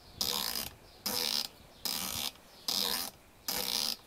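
Locking turret of a Meopta Optika6 1-6 rifle scope being turned by hand in five short spurts, a little under a second apart, each a quick run of solid clicks.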